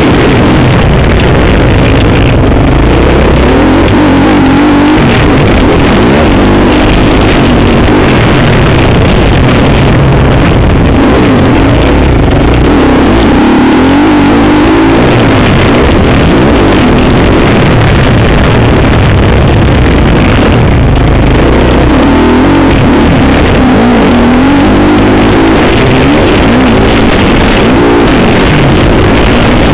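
Motocross bike engine heard from the bike itself, loud, its revs rising and falling over and over as it is ridden hard around the track.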